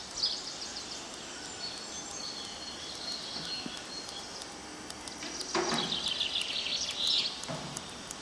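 Songbirds chirping and singing over a steady outdoor background hiss, with a louder burst of calls between about five and a half and seven and a half seconds in.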